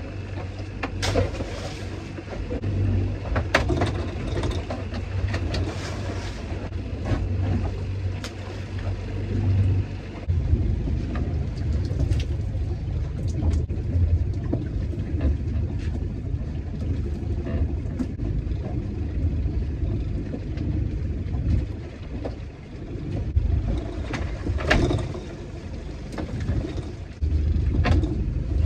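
Boat engine running steadily, its low note shifting about ten seconds in, with a few sharp knocks scattered through.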